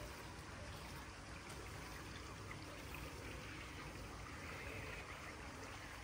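Faint steady outdoor background noise, an even hiss with no distinct events.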